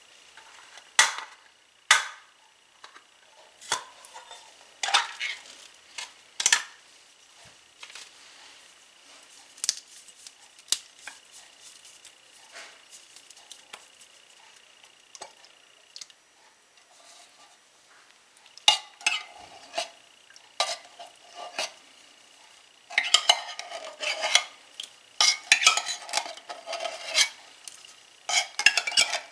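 Metal spoon scraping and clinking in a can of condensed cream of mushroom soup as the soup is scooped out into a glass bowl of broth. Scattered sharp clinks at first, then busier runs of scraping about two-thirds of the way in and near the end.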